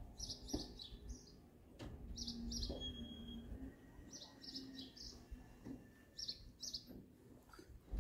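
A small bird chirping faintly: short high notes in quick pairs and triples, repeating every second or two.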